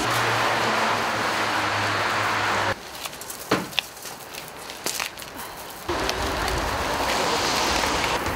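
Street traffic noise with a steady low engine hum, breaking about three seconds in to a quieter stretch with a few sharp clicks and scrapes of boots walking on gritted pavement as sand is scattered, then the traffic noise returns about six seconds in.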